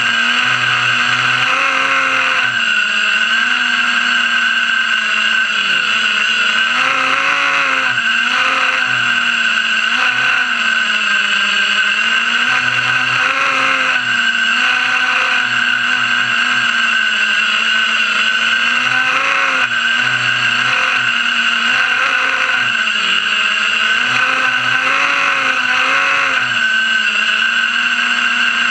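FPV racing quadcopter's brushless motors and propellers, heard from on board, whining loudly and steadily with the pitch repeatedly rising and falling as the throttle changes.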